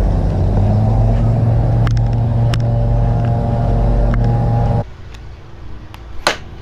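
A steady low engine-like hum that holds one pitch and cuts off abruptly about two-thirds of the way through. It is followed by a quieter stretch with a few sharp clicks, one of them much louder than the rest.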